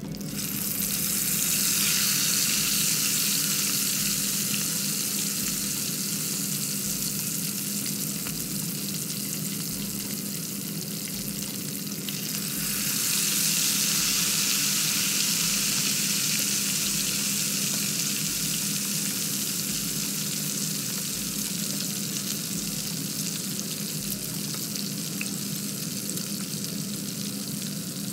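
Marinated quail deep-frying in a pot of hot oil: a steady high sizzle that swells sharply about a second in and again about twelve seconds in as fresh pieces go into the oil, easing off slowly after each.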